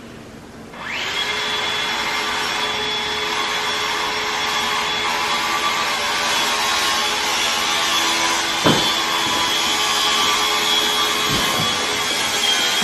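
Steady machine noise with a constant high whine, like an electric power tool running, starting about a second in. A short knock past the middle.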